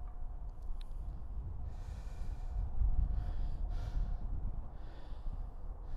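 Wind rumbling on the microphone, with a few breaths from the person filming, each a short breathy rush.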